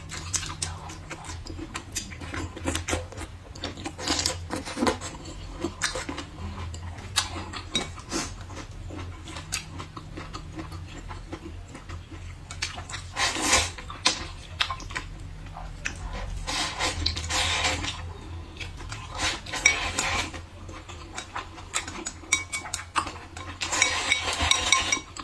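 Wooden chopsticks clicking and scraping against a ceramic bowl during eating, with several short bursts of noodles being slurped, the longest near the end.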